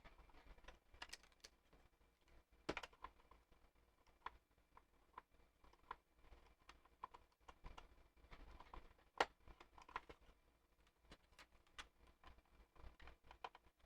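Faint, scattered clicks and taps of small puzzle-box pieces being handled and tried in slots. The sharpest clicks come about three seconds in and about nine seconds in.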